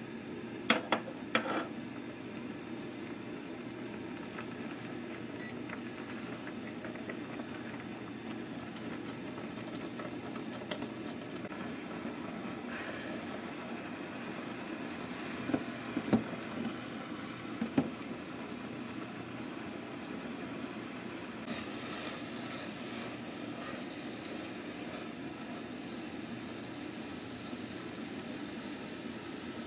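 A pot of soy sauce and sugar simmering with fried-tofu pouches in it, a steady bubbling rumble as the liquid boils down. Light knocks against the pot come about a second in and a few more about halfway through.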